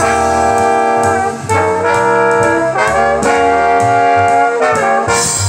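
Recorded jazz played through a pair of 1979 AIWA SC-61 bookshelf speakers: long held melodic notes changing chord every second or so over a steady bass line.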